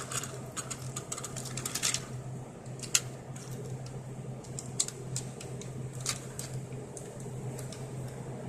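Light, scattered clicks and taps of toy trains being handled, a quick cluster in the first two seconds and then a few single clicks, over a steady low hum.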